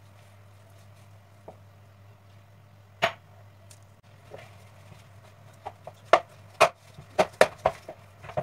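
Flour and water being mixed and kneaded into dough by hand in a plastic bowl. There is one sharp knock about three seconds in, then a quick run of sharp knocks and slaps in the last few seconds as the dough is worked harder, over a steady low hum.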